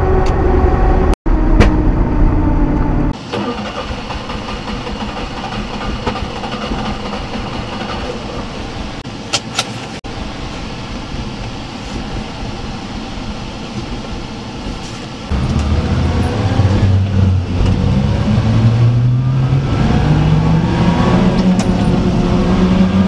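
Daihatsu Hijet kei mini truck engine running on the road, backfiring, with a couple of sharp pops about nine and a half seconds in. The owner blames the backfiring on water on the distributor cap and damp ignition wires. In the last third the engine gets louder and its pitch climbs in steps as it accelerates through the gears.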